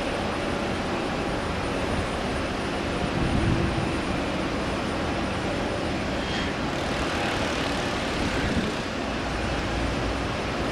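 Steady rumble of jet aircraft engines, with a hissier, higher stretch from about six seconds in.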